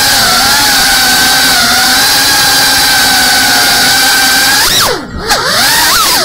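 FPV quadcopter's brushless motors and propellers whining steadily in flight. About five seconds in the throttle is chopped: the whine swoops far down in pitch and climbs straight back, then dips again just at the end.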